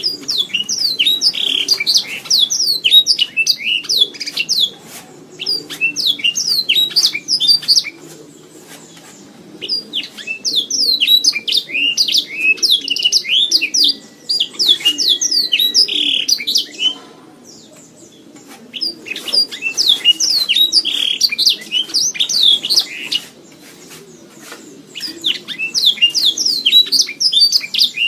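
Domestic canary singing long, fast songs of rapid chirps and trills, in runs of several seconds broken by short pauses.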